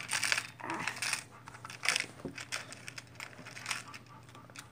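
Small fishing weights clicking and rattling in their package as it is handled, in a quick run of clicks and rustles that thins out after about two seconds.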